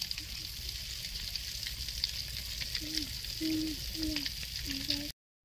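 Chicken legs deep-frying in oil in an aluminium wok: a steady sizzle with fine crackles. A few short low pitched calls come through in the second half, and the sound cuts off abruptly near the end.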